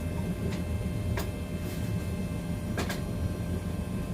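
Gas forge burner running with a steady low rumble, with a few light metallic clicks, about three, over it.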